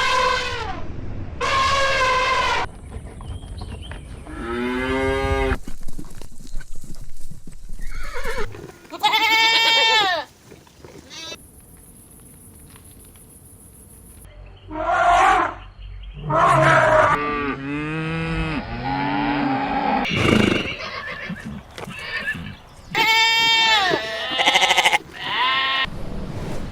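Farm animals calling one after another in a series of separate clips: loud, wavering, bleat-like cries, some short and some drawn out over a few seconds, with abrupt changes between clips.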